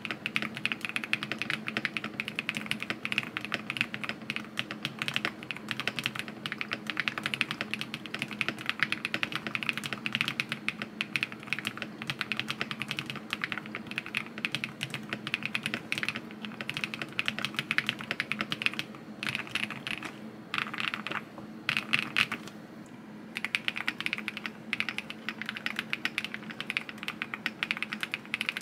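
Fast typing on a QK75N mechanical keyboard with Neo White linear switches mounted on a polycarbonate (PC) plate: a dense, continuous stream of key clacks, with a short pause about three-quarters of the way in.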